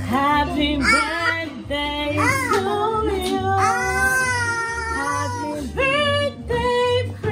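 Background music: a song with a female singer holding and sliding between notes over a steady bass beat.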